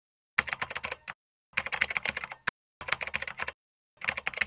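Keyboard typing sound effect: rapid key clicks in four short bursts, with dead silence between the bursts.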